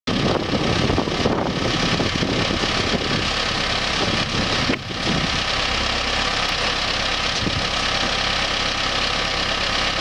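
Claas Arion tractor's diesel engine running steadily with a trailed potato harvester hitched behind. The sound dips briefly about five seconds in.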